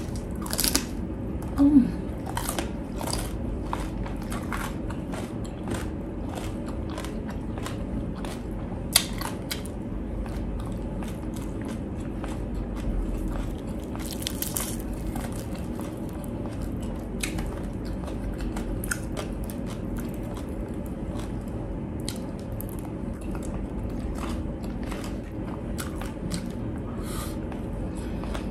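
Biting and chewing of crispy pata, deep-fried pork knuckle: irregular crunches of the fried skin, with one sharp crunch about nine seconds in.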